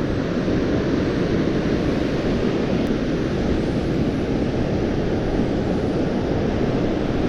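Strong gusting wind buffeting the microphone: a steady, loud rumbling noise.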